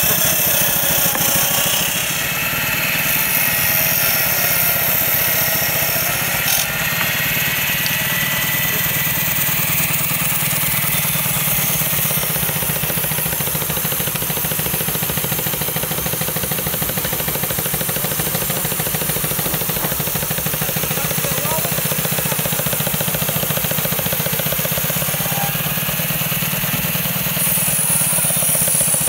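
A 3-inch-scale Burrell steam traction engine running steadily with fast exhaust beats, driving a small circular saw bench by a flat belt as strips of wood are fed through the saw.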